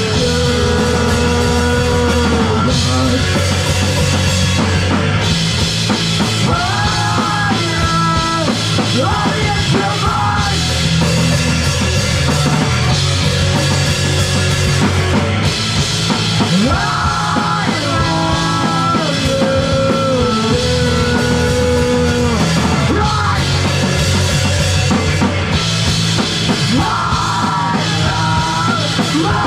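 Live rock band playing an instrumental passage loudly, a full drum kit driving steadily under a melodic line that recurs about every ten seconds.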